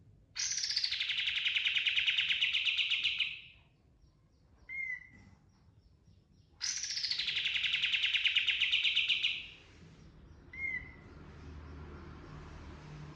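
Kapas tembak (katem) song: two long, rapid rolling trills of about three seconds each, each opening with a high downward sweep, and each followed a second or so later by a short single downslurred note.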